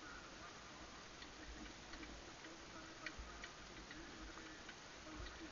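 Faint soft thuds and light clicks from a horse being ridden on grass: hoofbeats and the tack clicking, coming unevenly a few times a second.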